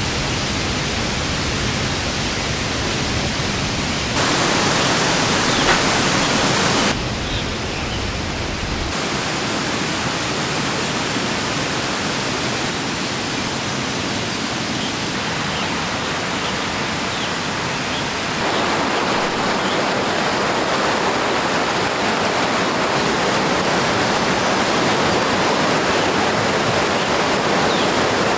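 Steady rush of water from a fast-flowing forest stream, stepping up and down in level a few times and louder over the last ten seconds.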